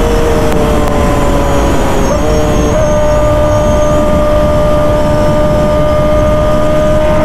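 Kawasaki ZX-10R inline-four with an SC-Project exhaust running at steady riding revs, heard from on the bike with heavy wind rush. Its note steps down right at the start, wavers about two to three seconds in, then holds steady.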